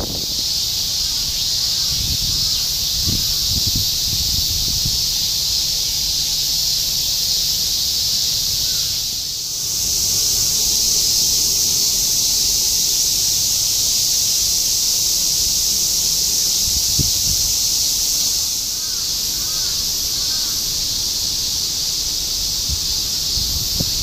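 Dense chorus of summer cicadas, a steady high sizzling buzz from many insects at once. It grows louder about ten seconds in and eases back about eight seconds later.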